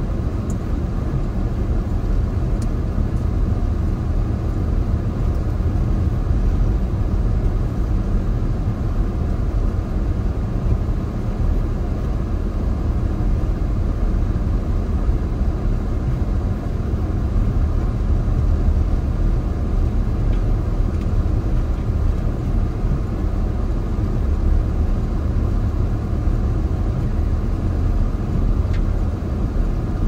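Steady low rumble of road and engine noise inside a moving car's cabin.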